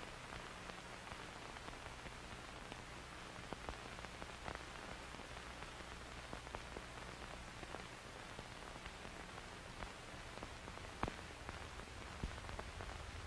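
Faint steady static hiss with a low hum underneath and scattered small crackles and clicks.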